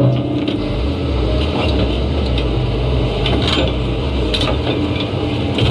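Heavy diesel machinery running under load, a steady low rumble with scattered metallic clanks and knocks.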